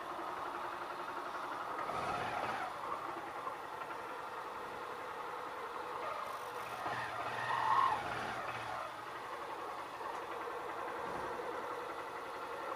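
Honda CG 160 Start's single-cylinder four-stroke engine running with a steady mechanical noise, which the mechanic puts down to the clutch bearing. It swells briefly about eight seconds in.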